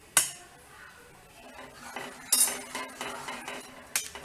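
A ladle knocking and clinking against a nonstick pan and scraping through simmering reduced milk as lemon juice is stirred in to curdle it. A sharp knock comes just after the start, clinks and scraping follow in the middle, and another knock comes near the end.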